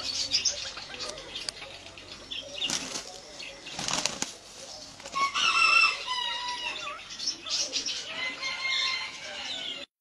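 A rooster and another bird flapping their wings in bursts as they spar, with high wavering bird calls from about five seconds in. The sound cuts off suddenly just before the end.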